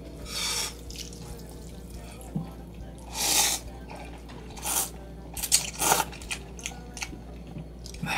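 A person slurping instant noodles and broth in short wet slurps, the longest about three seconds in, with a few small clicks near the middle.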